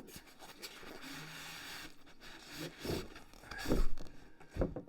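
A box being handled: scraping and rubbing, then a few dull thumps, the loudest a little under four seconds in.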